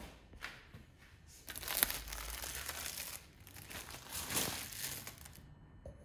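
Clear plastic protective wrap being pulled off a headlight lens and crinkled up, in two spells of crackling, the second fading out about five seconds in.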